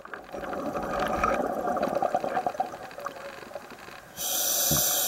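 Scuba diver breathing through a regulator: a long burst of exhaled bubbles gurgling, then a gap, then about four seconds in a steady hiss of the next inhaled breath.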